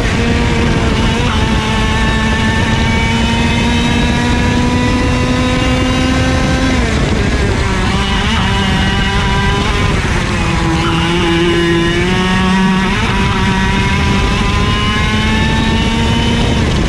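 IAME KA100 100cc two-stroke kart engine at race pace, heard onboard. Its pitch climbs slowly for about seven seconds, drops sharply off the throttle, stays low through the corner, then climbs again as it accelerates out.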